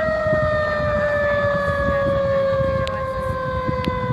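Emergency siren wailing in one long, slowly falling tone, with low noise underneath.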